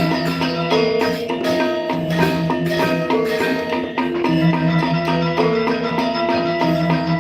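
Balinese gamelan ensemble playing dance music: metallophones ringing in dense, fast-moving note patterns over a steady low tone.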